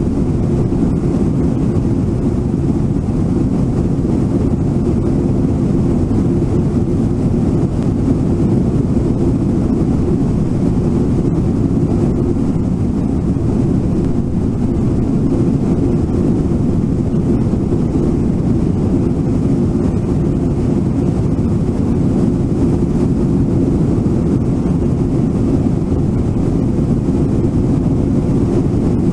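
Rushing river water at Brooks Falls: a steady, deep wash of flowing water that never lets up.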